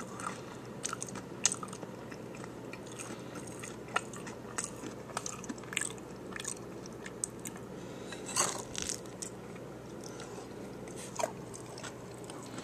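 Close-miked chewing of a taco bowl: irregular crisp crunches of a hard taco shell mixed with softer wet chewing and mouth clicks, with a louder burst of crunching about eight seconds in.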